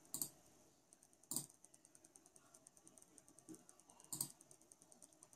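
Three faint clicks of keys pressed on a Corsair Strafe RGB mechanical keyboard with Cherry MX Red switches, the first and last doubled, with a faint fast ticking in between.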